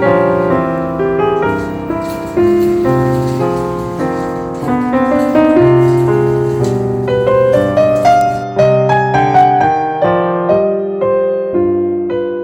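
Piano music, a flowing run of notes and changing chords.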